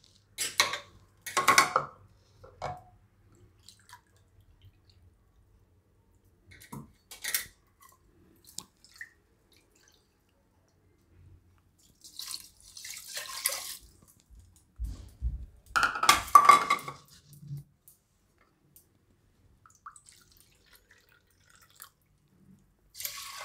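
Water poured from a plastic bowl and a measuring cup into a pressure cooker holding washed rice, in several separate pours and splashes with quiet gaps between. The loudest pour comes about two-thirds of the way through, with a low knock.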